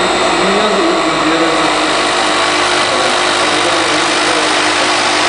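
Bridge-type 3-axis CNC machining machine running: a loud, steady machine noise with several even high tones over a low hum.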